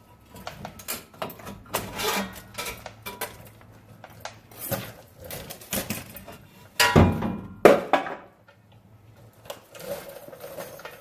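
Irregular metallic clanks and scrapes from work on the old exhaust pipe as it is being cut off, with two loud knocks a little past halfway.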